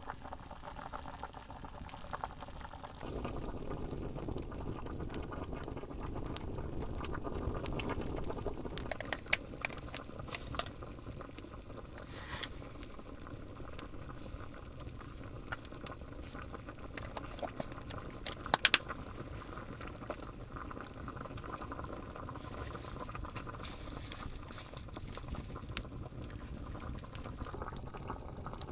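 A pot of liquid boiling steadily over a campfire, bubbling throughout, with the wood fire crackling in scattered sharp pops; the loudest is a quick double pop about two-thirds of the way through.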